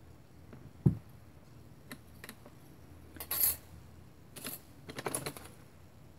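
Small hard craft tools handled on a cutting mat: a dull knock about a second in, a few light clicks, then a short metallic rattle and clatter as a metal ruler is laid down and a craft knife picked up.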